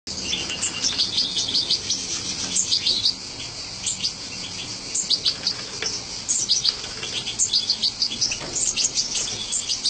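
European goldfinches twittering: a dense, overlapping stream of short, high chirps that keeps going without a break.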